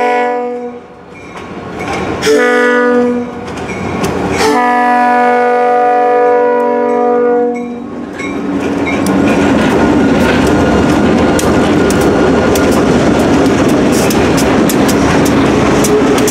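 A diesel freight locomotive's air horn sounding a chord of several tones for a grade crossing: a long blast cutting off, a short blast about two seconds in, then a final long blast of about three seconds. Then the locomotives run past close by, loud and steady, their wheels clicking over the rail joints as the freight cars follow.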